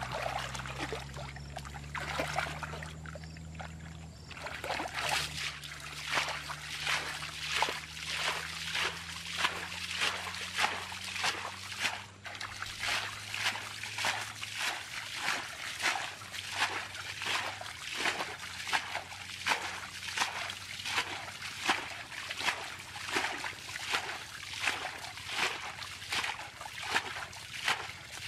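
Muddy water sloshing and splashing as hands scoop and grope through the mud, settling after a few seconds into a steady rhythm of about two splashes a second.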